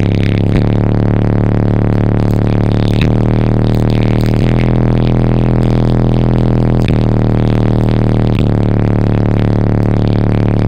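Car-audio subwoofers in a new enclosure playing a very loud, deep bass note inside the vehicle's cab, changing note every couple of seconds. The bass pressure is strong enough to lift and shake hair: the car-audio 'hair trick'.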